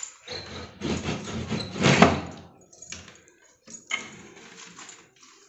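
A metal sliding bolt on a wooden double door drawn back with a long scrape, loudest about two seconds in, then the door pushed open with a few short knocks.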